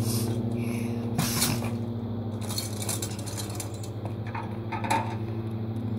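Light metallic clicks and clatters from a stunt scooter handled on asphalt, a few scattered knocks over a steady low hum.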